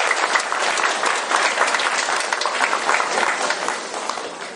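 A hall audience applauding, a dense crowd of clapping hands that tapers off near the end.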